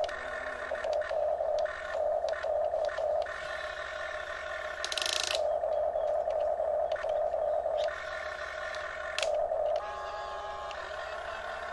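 Electric gear motors of a Huina RC excavator whining in on-off stretches as the boom and bucket are moved, the pitch shifting a little from one stretch to the next. A short hiss about five seconds in.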